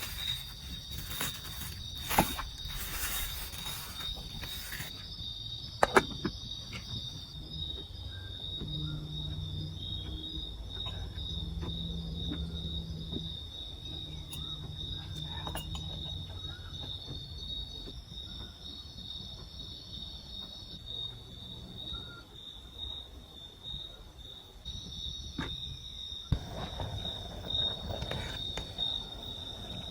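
Forest insects trilling in a steady high-pitched drone, with a few sharp knocks, two of them near the start and one near the end.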